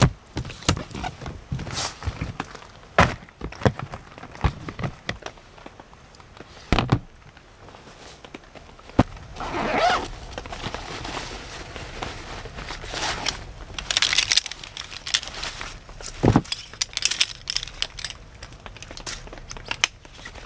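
Camping gear being handled: knocks and clicks on a hard plastic storage box, the nylon bag of a Helinox folding camp chair rustling as the chair is taken out, and its aluminium pole frame clacking, with a sharp thump a little past the middle.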